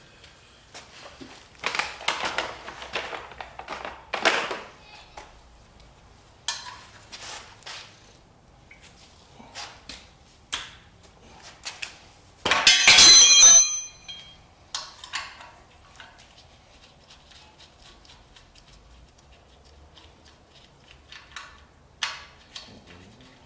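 Hand tools and engine parts clanking and scraping during an engine teardown, with scattered knocks and a loud, ringing metallic clatter lasting about a second and a half just past the middle.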